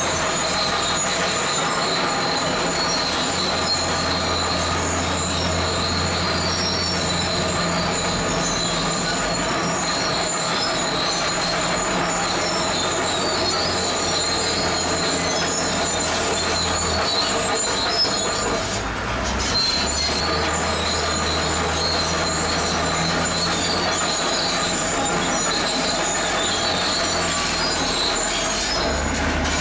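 Zoomlion crawler bulldozer at work: its diesel engine runs steadily, with a continuous high squeal and clatter from its steel tracks. The engine note shifts a few times as it works.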